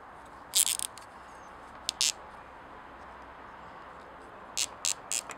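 Short, high-pitched metallic scrapes and clicks from handling a chainsaw piston with its rings held in a strip ring compressor: a few near the start, two around two seconds in, and three near the end.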